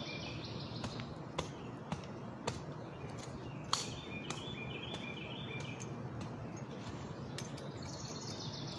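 A songbird singing a phrase of quick stepped notes three times, over steady outdoor background noise. Scattered sharp clicks from a knife digging into stony soil, the loudest a little under four seconds in.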